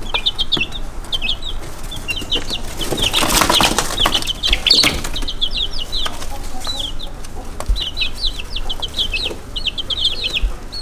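Baby chicks peeping: rapid clusters of short, high chirps. A burst of rustling comes about three seconds in and lasts a couple of seconds, the loudest part.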